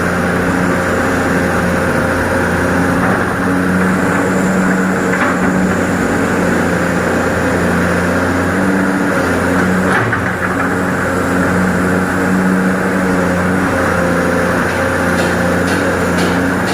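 Excavator's diesel engine running steadily, with a couple of faint knocks.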